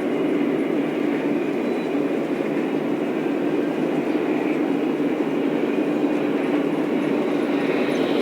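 Lionel O-scale model train running steadily along the track, an even, continuous running noise with no breaks.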